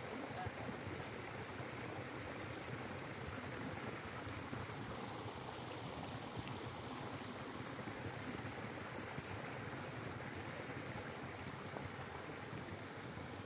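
Running water: a steady, even rushing flow.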